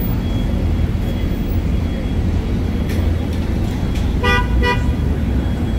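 A car horn gives two short toots in quick succession about four seconds in, over a steady rumble of street traffic.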